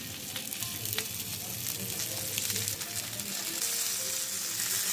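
Butter-coated tandoori chicken leg pieces sizzling on a hot grill pan: a steady hiss with scattered crackling pops, getting a little louder toward the end.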